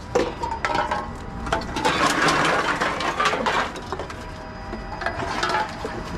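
Aluminium drink cans clinking and knocking as they are handled and fed one at a time into a reverse vending machine. The machine's intake mechanism runs as it takes in a can, loudest about two to three seconds in.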